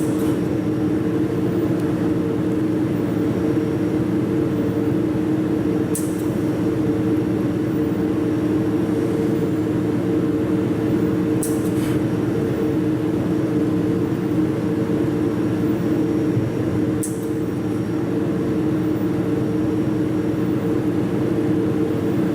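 Jewelry laser welding machine running with a steady, even hum, and a short sharp click about every five and a half seconds.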